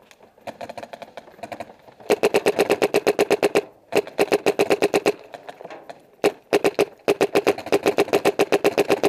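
Paintball marker firing rapid strings of shots, about ten pops a second, with a sharp pop and a short metallic ring on each shot. Three or four strings come in quick succession with brief pauses between them.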